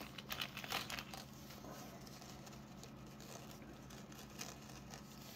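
Faint crinkling of thin plastic packaging being handled, mostly in the first second or so, over a low steady hum.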